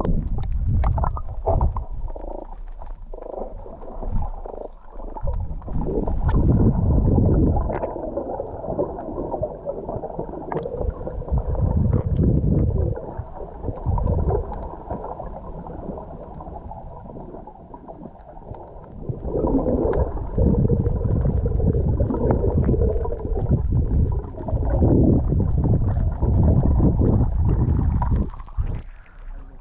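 Muffled underwater rumble and gurgling of sea water moving around a submerged GoPro Hero 8 Black, with no clear sound above a dull low range. It swells and fades in surges, loudest a few seconds in and again through the second half.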